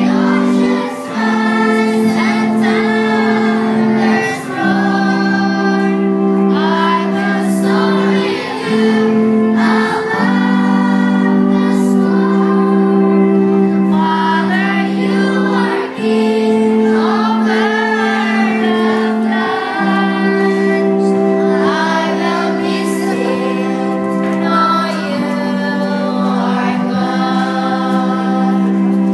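A group of schoolchildren singing a slow hymn together, over steady held chords that change every few seconds.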